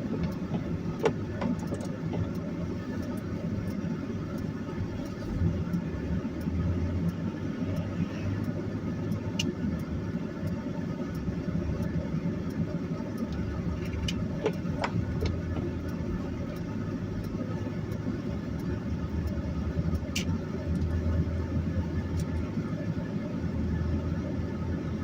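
Inside the cab of a 2001 Chevy Silverado 1500 pickup driving slowly on a snowy highway: a steady low rumble of engine and tyres, with a few faint scattered clicks.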